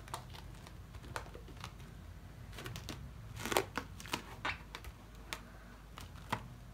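Scattered light clicks and taps with a brief plastic rustle about halfway through: hands handling a roll of cling film and plastic cups on a kitchen counter.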